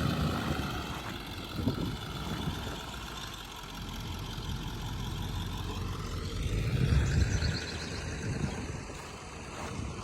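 A vehicle engine running steadily with a low rumble, growing somewhat louder about seven seconds in.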